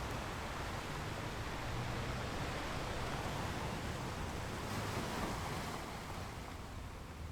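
Sea waves breaking and washing over a rocky beach: a continuous rush of surf that swells through the middle and eases off near the end.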